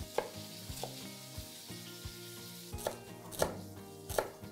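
Chef's knife slicing shallots and celery on a plastic cutting board: a series of sharp knocks of the blade on the board, roughly one every half second, the louder ones in the second half.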